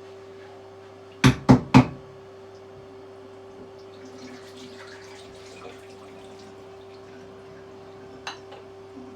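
Espresso portafilter knocked out three times in quick succession to empty the spent coffee puck: three sharp knocks. A faint trickle of water follows, over a steady low machine hum.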